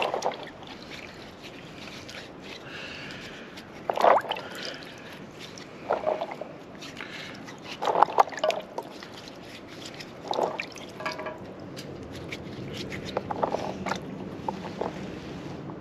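Water splashing and sloshing in a basin as fig cuttings are dipped, swished and rubbed clean by hand, in short splashes every two seconds or so.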